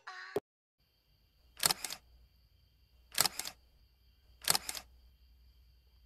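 Three sharp click sound effects from a subscribe-button animation, about a second and a half apart, each a quick double click, over a faint steady hum.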